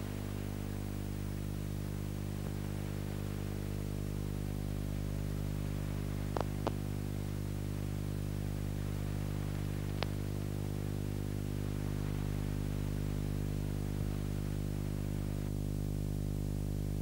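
Steady electrical hum with many overtones and a faint hiss on an otherwise silent soundtrack, with two faint clicks about six seconds in and another about ten seconds in.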